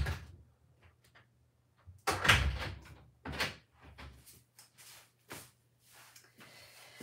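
A door being opened and shut, heard as a few sudden knocks and thumps with quiet between them; the loudest comes about two seconds in and another just after three seconds.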